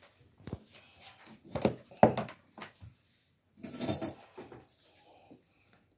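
Kitchen handling sounds: a series of short knocks and clatters as items around the coffee maker are picked up and moved. The loudest knock comes about two seconds in, and a denser clatter follows about four seconds in.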